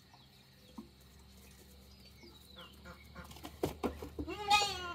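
A short farm-animal call with a wavering pitch near the end, after a few light knocks and rustles.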